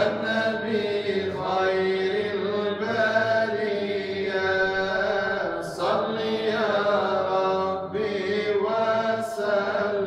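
Unaccompanied male voice chanting a devotional Islamic hymn into a microphone: long, drawn-out notes with ornamented turns, broken by short breaths about six and eight seconds in.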